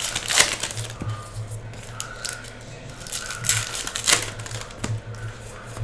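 Trading-card pack wrappers being torn open and crinkled by hand: irregular crackles and rips, the sharpest about half a second in and again around three and a half and four seconds in.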